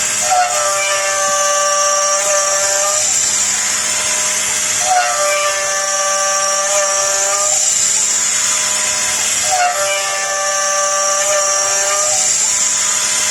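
Small CNC router's spindle running steadily while an end mill cuts aluminium on an iMachining toolpath. The cut rings with a pitched tone that comes back in repeating passes about every four and a half seconds.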